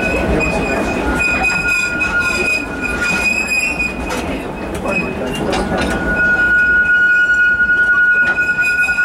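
Park passenger train running on its track, heard from an open-sided car: a low rolling rumble with scattered clicks, and the wheels squealing against the rails in steady high tones that grow louder about six seconds in.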